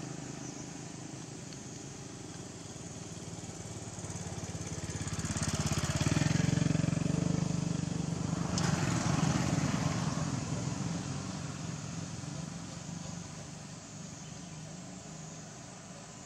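A motor vehicle's engine passing by: a low, pulsing hum that swells to its loudest a third of the way in and then slowly fades. A single sharp click comes near the middle.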